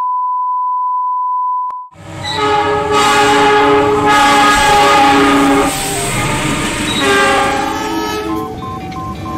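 A steady test-tone beep for about two seconds, cutting off suddenly. Then diesel locomotive horns sound in a run of long, multi-note blasts whose chord shifts every second or so, over the noise of a train passing.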